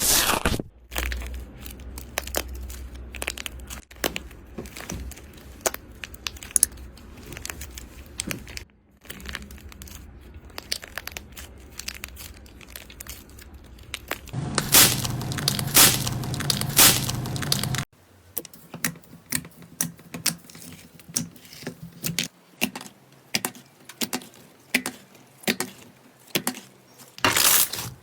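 Slime being squeezed, stretched and pressed by hand, making sticky crackling, tearing and popping sounds over several short clips; near the end the pops come as a steady run of separate presses.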